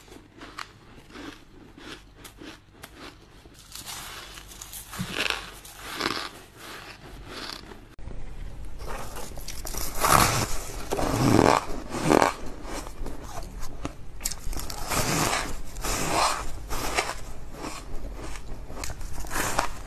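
Crunchy bites into chunks of frosty purple-coloured ice, close to the microphone: sharp cracks followed by crackling and chewing of the ice. The bites get louder and come more often from about eight seconds in.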